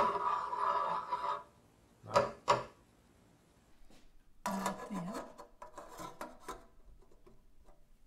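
Spoon stirring thick soup in a stainless steel saucepan, scraping against the pan. There is one long stroke at the start, two short scrapes about two seconds in, then a run of scrapes and clicks from about four and a half to six and a half seconds.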